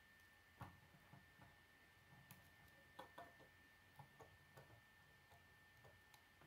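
Faint, irregular clicks and taps of plastic K'nex rods and connectors being handled and snapped into place, about a dozen spread over a few seconds.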